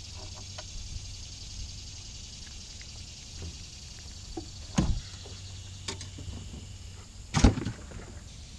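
Knocks and thumps against the deck of a small aluminium jon boat as a caught fish is handled. There is a louder thump about five seconds in and the loudest about seven and a half seconds in, with light clicks between, over a steady high hiss.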